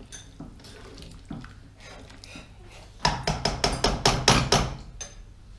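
A metal spoon knocking and scraping against a large steel stock pot while thick potato stew is stirred. A few soft clinks come first, then a quick run of loud knocks, several a second, for about two seconds near the middle.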